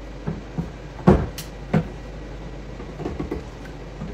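Hollow plastic knocks and clatters of a drum transfer pump's tube being handled in the neck of a plastic pail. The loudest knock comes about a second in, followed by a sharp click, and a quick cluster of smaller taps comes near the three-second mark.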